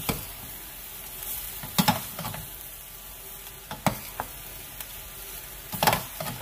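Egg fried rice being stirred and turned with a metal spoon in a stainless steel pot, over a steady frying hiss, with a sharp knock of the spoon against the pot about every two seconds, four in all.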